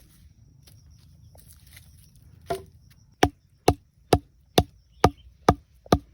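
A wooden stake being struck. There is a single knock, then a steady run of sharp blows about two a second.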